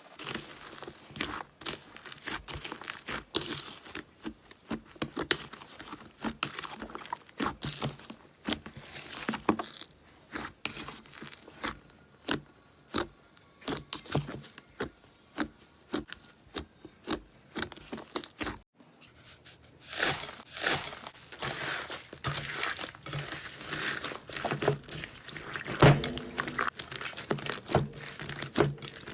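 Slime being squeezed and poked by hand: runs of sticky clicks, pops and crackles, several a second. A brief silent break comes about two-thirds of the way through.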